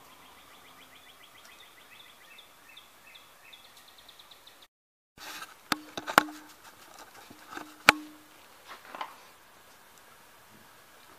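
Faint, rapid chirping in the background, then, after a short break, several sharp metallic knocks and clinks as the rear strut assembly is handled under the car. The two loudest come about two seconds apart, and some are followed by a brief ringing tone.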